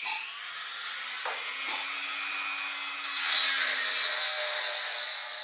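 Dremel rotary tool spinning up with a quick rising whine, then grinding away material to enlarge the notches of a steering wheel hub adapter. The grinding turns harsher about three seconds in.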